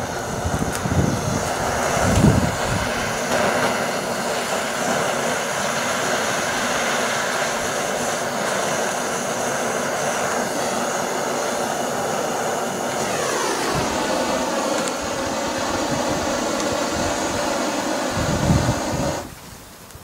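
Handheld gas torch burner on a cassette gas canister, hissing steadily as its flame is held on the kindling to light it; its tone sweeps downward a little past the middle, and it cuts off about a second before the end.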